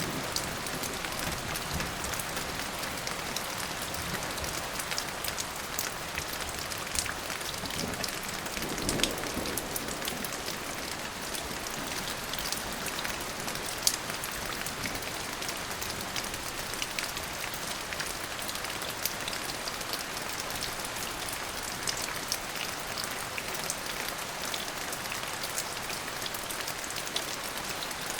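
Steady rain falling on a surface, with many sharp drop hits throughout and a brief low swell about nine seconds in.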